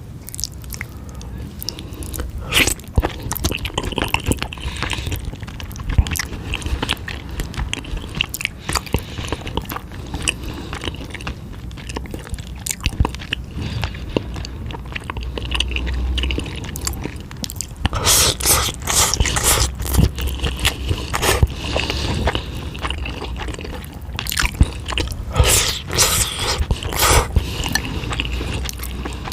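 Close-miked eating of noodles and eel: steady chewing and biting with many small wet clicks. Denser, noisier stretches come about two-thirds of the way through and again near the end.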